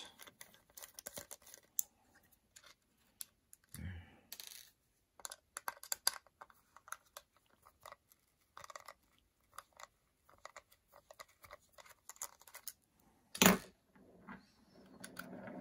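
A small T6 Torx screwdriver backing screws out of the plastic base of a Google Nest Mini: a run of small, irregular clicks and ticks as the bit turns and the plastic housing is handled, with one sharp knock about thirteen seconds in.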